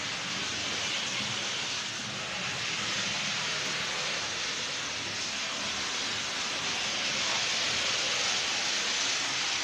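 Small H0-scale Piko E69 model electric locomotive running, its motor whirring steadily with the wheels rolling on the rails, a little louder near the end as the train passes close.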